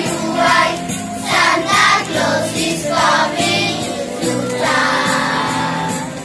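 A group of children singing together in unison over instrumental accompaniment.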